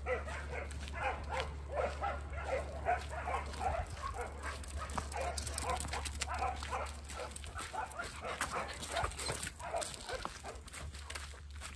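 A dog giving quick, repeated short yips and whines, several a second, thinning out in the second half. Light clicks join in from about five seconds in.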